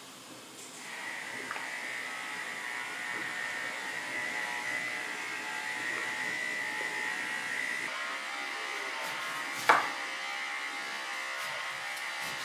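Electric hair clippers buzzing steadily from about a second in, with a single sharp knock near the end.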